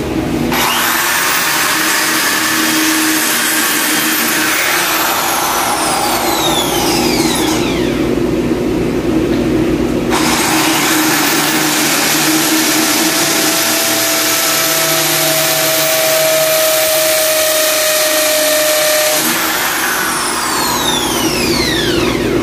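Corded electric drill running in two long runs of several seconds each, whining up to speed at the start and winding down at the end of each run.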